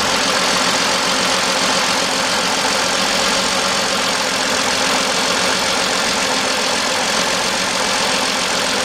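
1997 Mercedes-Benz E320's straight-six engine idling steadily with a misfire on cylinder 6 (code P0306). Unplugging the cylinder 6 connector makes no change whatsoever to how it runs, which the mechanic takes to mean cylinder 6 is already bad.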